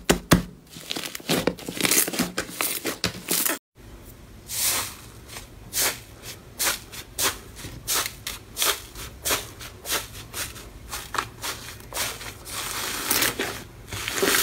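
Slime being squeezed and pressed by hand, crackling and crinkling in quick, irregular bursts. The sound drops out briefly about three and a half seconds in, then the crackly handling starts again over a faint low hum.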